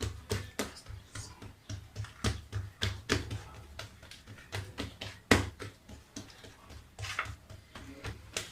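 Light, irregular taps and knocks, about two or three a second, with a few duller thuds, as hands press and stretch pizza dough on a work surface.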